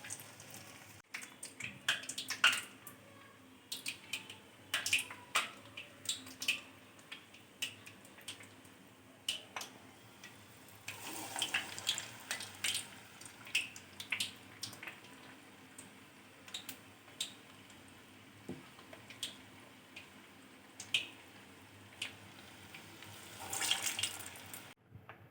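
Urad dal vadas frying in hot oil: scattered crackles and pops, with two short louder stretches of sizzling, one about halfway through and one near the end.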